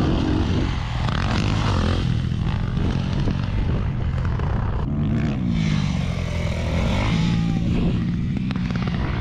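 Dirt bike engine revving, its pitch rising and falling several times as the throttle is worked.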